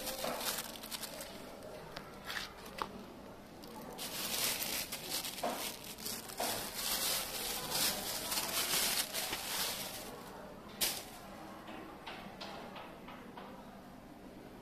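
Thin black plastic bag rustling and crinkling as a kitten caught in it walks and pulls at it: scattered crackles at first, then several seconds of continuous rustling in the middle, and one sharp crackle a little before the end.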